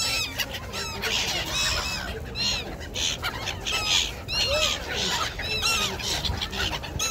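A flock of black-headed gulls calling: many short, arched cries overlapping one another without a break.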